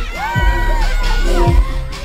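Hip-hop/R&B song played loud through an outdoor stage PA, with a female lead vocal line and a heavy bass drum beat about twice a second.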